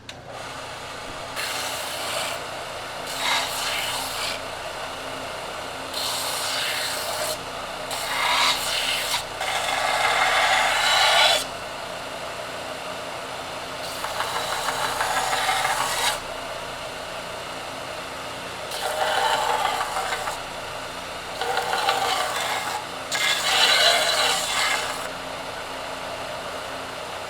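A bench power sander or grinder runs steadily while a freshly cut metal mount is pressed against it in about eight separate passes, each a second or two of rasping. The machine starts at the beginning and shuts off at the end.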